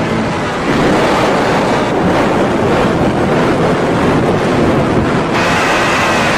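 Very loud, distorted noise from an 'earrape' sound effect, a dense roar across all pitches; about five seconds in it turns brighter and a steady high whine comes in.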